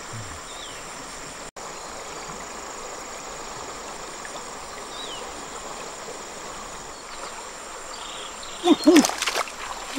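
Steady rush of river water with an insect's thin high buzz. Near the end a man gives two short, loud exclamations.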